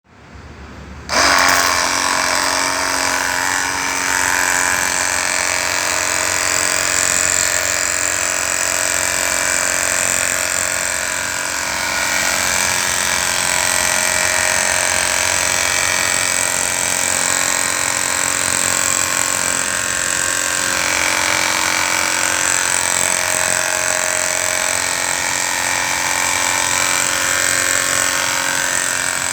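A small motor running steadily at a constant speed, starting abruptly about a second in, with a fixed high whine over a mechanical hum.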